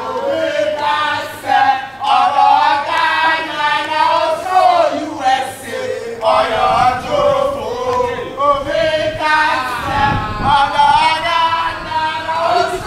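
A group of football fans singing a chant together in short repeated phrases.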